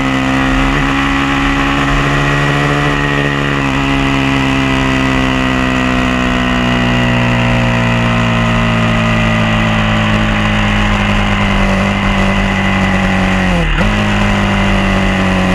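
Onboard sound of a Honda MC22 (CBR250RR) racing motorcycle's four-cylinder engine running hard, its pitch falling slowly as the bike eases off. Near the end the revs dip sharply and pick back up, as in a gear change.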